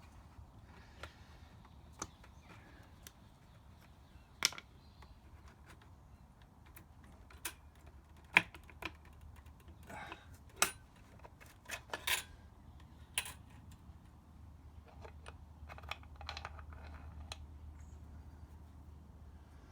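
Irregular sharp metallic clicks and clinks of hand tools and small engine parts being handled during a motorcycle starter strip-down, a dozen or so in all, the loudest about four, eight and ten seconds in, over a faint steady low hum.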